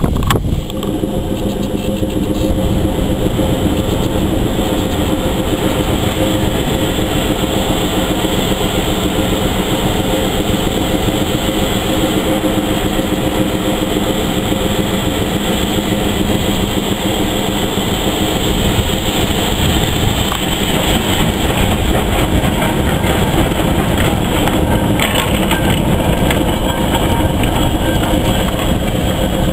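Steam tank locomotive in Thomas the Tank Engine livery working in the yard: a steady running noise with steam hissing from around the cylinders.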